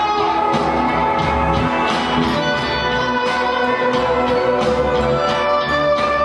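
Live rock band playing: two electric guitars over drums keeping a steady beat of about two hits a second, with long held notes.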